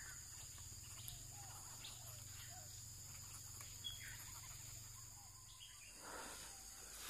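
Faint outdoor ambience: a steady high insect drone with scattered soft bird chirps, and a short rustle about six seconds in.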